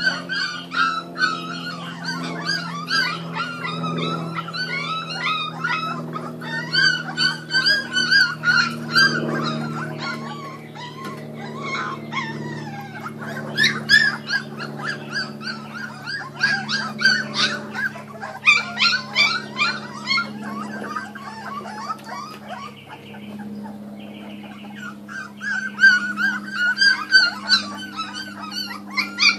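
A litter of young Kuvasz puppies whimpering and squealing, many short high-pitched cries overlapping one another, with a couple of quieter spells midway.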